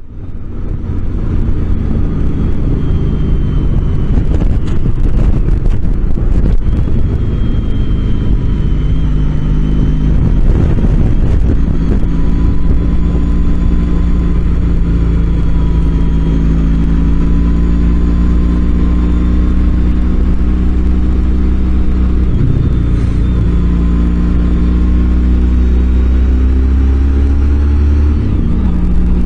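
A motor vehicle on the move: a loud, steady low drone of engine and road noise, with the engine's pitch slowly rising and falling as it changes speed.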